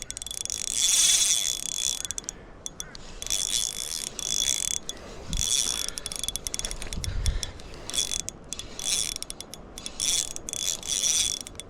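Drag of an ultralight 1000-size spinning reel buzzing in repeated runs of about a second as a hooked trevally pulls line off against it.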